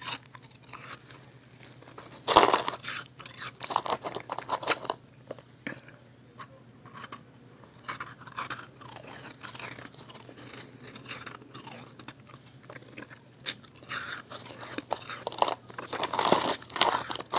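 A person biting into and chewing soft, freshly blended ice pressed into small chunks: irregular soft crunches, loudest about two seconds in and again near the end.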